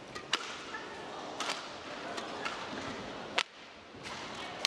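Badminton rally: rackets striking the shuttlecock four times, one to two seconds apart, with brief squeaks of court shoes over the hall's background murmur.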